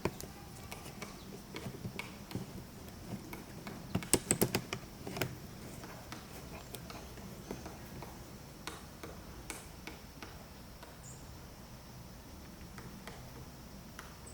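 A woodpecker pecking and tapping: scattered sharp taps, with a quick run of about half a dozen louder strikes about four seconds in, then sparser ticks.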